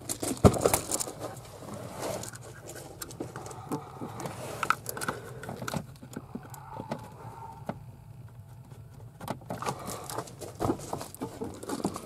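Scattered clicks, scrapes and rustling of hands working among the wiring under a truck's dash, pushing a plastic door buzzer module into its connector in the convenience center.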